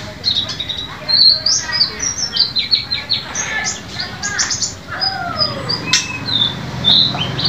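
White-eye (pleci) singing a fast, varied run of high chirps, short whistles and twittering notes, loud and continuous.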